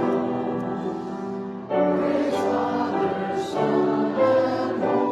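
Church choir singing, several voices holding long notes together; the singing dips briefly and a new phrase comes in louder a little under two seconds in.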